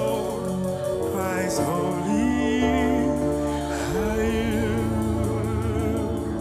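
Gospel worship song: a singer holds long notes with vibrato over sustained band chords and bass, about 2 s and 4 s in, with no clear words.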